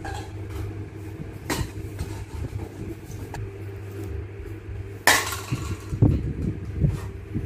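A plastic baby bottle clattering onto a concrete floor about five seconds in, followed by a few dull thumps, over a steady low hum. A lighter knock comes earlier.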